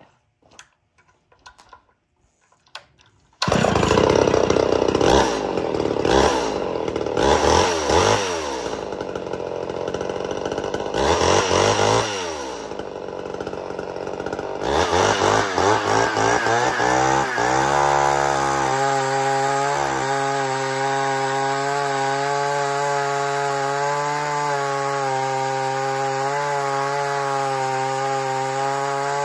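Homelite XL12 two-stroke chainsaw engine bursting into sound about three seconds in after a few faint clicks. It is revved up and down repeatedly, then rises and holds a steady high speed for the last ten seconds or so.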